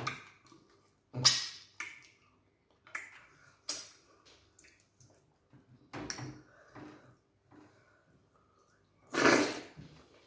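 Close-up wet eating sounds of people eating okra soup and starch by hand: short squelches and sucking sounds in separate bursts, with a longer, louder one about nine seconds in.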